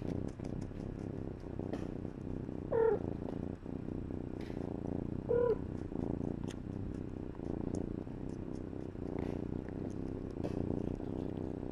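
Mother cat purring steadily close up, with two short mews about three and five seconds in.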